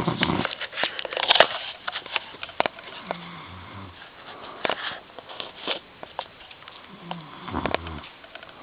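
A man snoring in his sleep: low snores about every four seconds, with sharp clicks and crackles between them.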